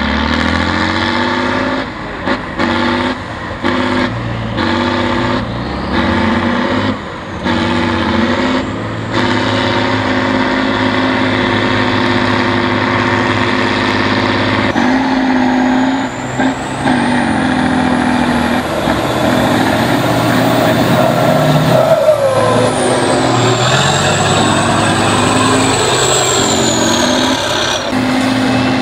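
Heavy eight-wheel-drive trial trucks' diesel engines running and revving under load, broken by several short cuts in the first ten seconds. A high whine rises and then falls through the second half.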